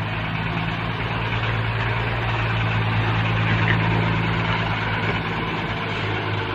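Heavy diesel engine running steadily with a low, even hum that swells slightly and eases off.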